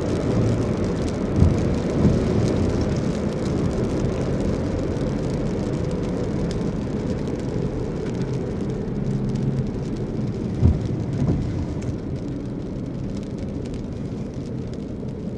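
Steady low rumble of a car driving, heard from inside the cabin: engine and tyre noise, with a few brief thumps.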